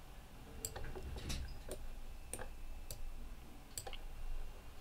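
Computer mouse clicking: several sharp, irregularly spaced clicks as nodes are dragged and connected in the editor.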